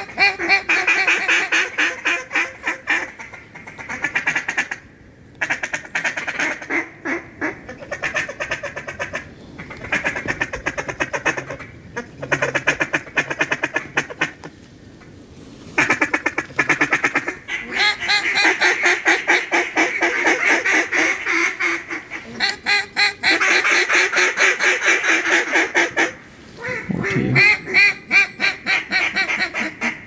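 Duck quacking and fast chattering in long runs of rapid, evenly repeated notes, broken by a few short pauses.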